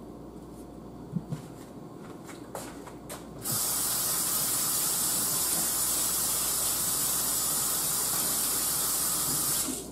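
Kitchen faucet running into a stainless steel sink as hands are washed: the water comes on sharply about three and a half seconds in, runs steadily, and shuts off just before the end. A few light knocks before it.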